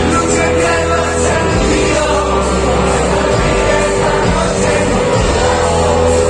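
Live rock band playing with a voice singing over guitar, bass and drums, loud and continuous.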